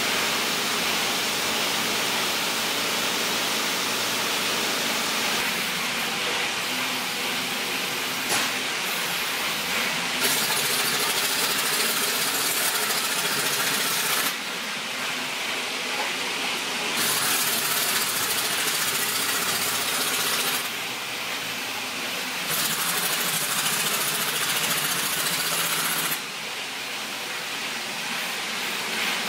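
Pneumatic wrench running in long stretches with a steady hiss of exhaust air while tightening the mounting bolts of an excavator final drive. The tool stops briefly three times in the second half.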